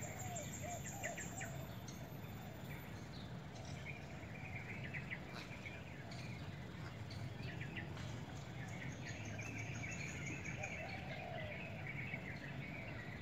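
Small birds chirping in short scattered trills over a steady low background hum.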